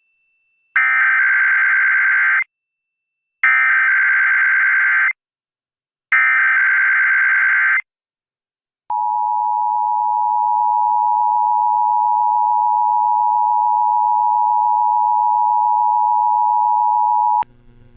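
Emergency Alert System alert on the radio: three bursts of the SAME digital header, buzzy data tones about 1.7 seconds each with a second's gap between them, then the steady two-tone attention signal held for about eight and a half seconds before cutting off suddenly. It marks the start of an emergency activation, here a tsunami warning.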